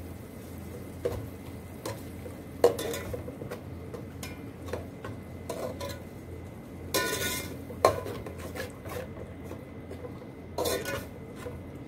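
Metal spoon stirring a wet onion-tomato masala in a metal pot, scraping the pot and clinking against its side in short sharp strokes.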